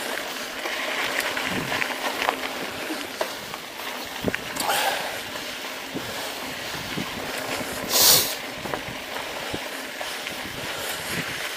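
Mountain bike tyres rolling over a rocky dirt trail, with a steady rushing noise and many small clicks and rattles from gravel and the bike. A brief loud hiss comes about eight seconds in.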